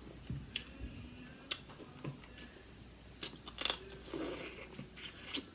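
Close-miked eating of seafood-boil crab: scattered sharp cracks and clicks of shell being broken and bitten, with chewing between them; the loudest cracks come about three and a half seconds in.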